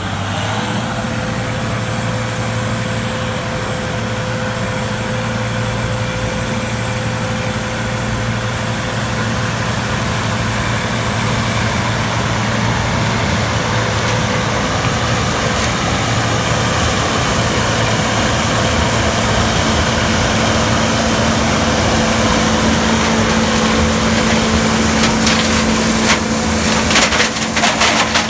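Gleaner combine running steadily, its engine and machinery giving a constant hum with a held whine that rises slightly in pitch just at the start. In the last few seconds a crackling, crunching sound builds over it.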